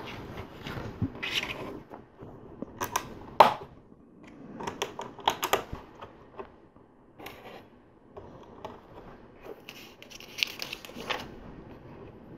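Plastic LEGO plates and bricks clicking as they are pressed onto studs, in scattered sharp clicks, the loudest about three seconds in, with a short scratchy rustle of handled parts about ten seconds in.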